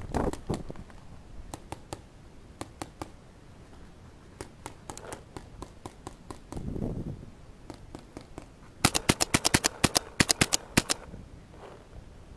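Paintball markers firing: scattered single pops, then about nine seconds in a rapid string of about fifteen loud shots over two seconds.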